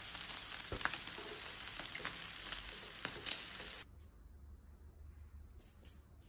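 Food sizzling and crackling as it fries, which cuts off suddenly about four seconds in, leaving a faint low hum with a few soft clicks near the end.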